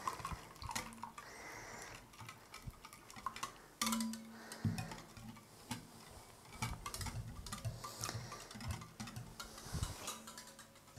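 Wire whisk beating a runny batter of milk, eggs and olive oil in a bowl: quick, uneven clicks and taps of the metal wires against the bowl as it stirs.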